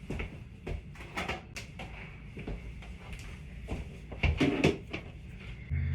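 Scattered knocks and clicks of drawers and cupboards being opened and rummaged through, louder about four and a half seconds in. A steady low hum starts right at the end.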